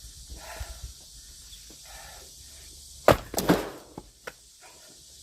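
Axe splitting firewood: a sharp strike into a log about three seconds in, a second loud crack right after, then a couple of lighter knocks.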